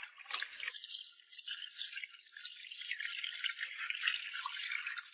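Tap water running and splashing as hands rub and rinse salted snakehead fish slices, first in a bowl and then on a perforated metal skimmer, washing the salt off. A steady hiss of water with small splashes.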